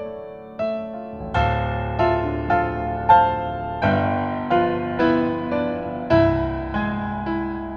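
Background music on a piano or electric piano: a gentle melody of single notes over deep bass notes struck about every two and a half seconds.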